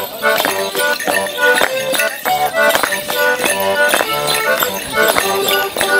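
A traditional English folk dance tune played live, with the clatter of wooden-soled clogs striking stone paving in a steady rhythm with the beat.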